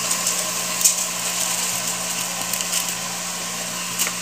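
Raw white rice being poured into an aluminium pot of vegetables frying in oil: a steady frying hiss with the grains spilling in, and a few light clicks.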